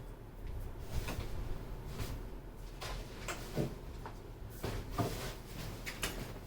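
Keys of a Skyloong SK61 mechanical keyboard with Gateron optical switches and ABS keycaps being pressed, giving irregular separate clacks about two a second.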